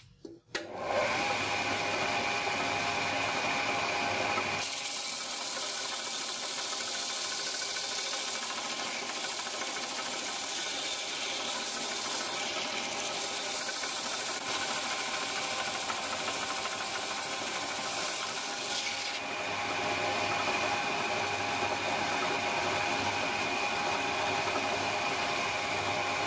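Stationary belt sander starting up and running with a steady whine. From about five seconds in, a wooden bill-hook handle is pressed onto the moving abrasive belt, adding a loud, even sanding rasp that eases off about seven seconds before the end while the motor runs on.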